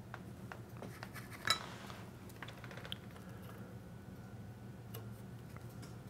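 Faint small clicks and light metallic taps of hand work on a circuit board at a soldering bench, with one sharper click about a second and a half in, over a low steady hum.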